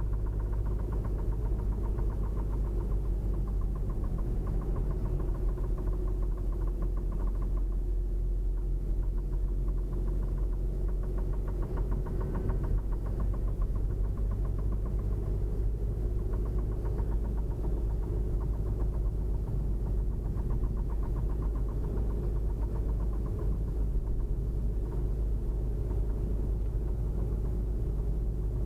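Car engine running steadily with a rapid, even knock riding over its low hum, the knocking noise of a mechanical fault.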